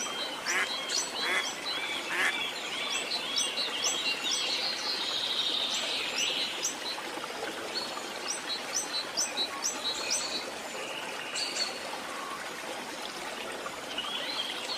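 Tropical rainforest ambience: many birds calling and chirping over a steady rush of falling water. A run of quick repeated arched calls comes in the first couple of seconds, with high chirps throughout.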